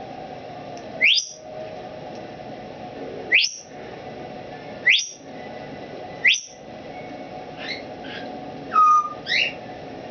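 Timneh African grey parrot whistling: four loud, sharply rising whistles about a second and a half apart, then a few shorter, fainter notes and a lower whistle that jumps up in pitch near the end.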